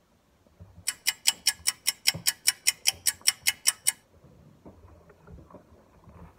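A run of sharp, evenly spaced clicks, about five a second, lasting about three seconds and stopping abruptly.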